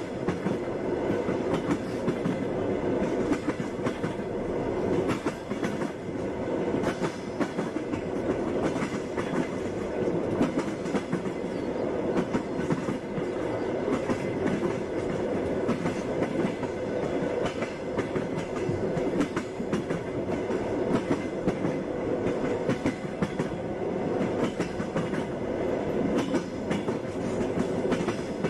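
Passenger train running at speed: a steady rumble with the wheels clacking over the rail joints.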